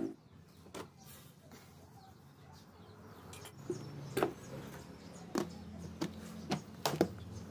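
The drill stops right at the start. A few seconds later come a series of sharp plastic clicks and knocks as a plastic bucket lid is pressed down onto a bucket of shelled corn kernels, the loudest snap near the end.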